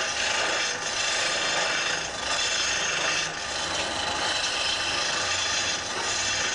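Wood being turned on a lathe: a cutting tool shaving the spinning wooden piece with a steady rasping hiss that eases briefly a few times as the cut lightens.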